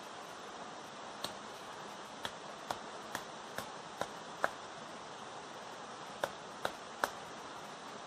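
Dry sticks snapping sharply as they are broken by hand for firewood, about ten crisp cracks in irregular succession with a pause around five to six seconds. A waterfall's steady rush runs underneath.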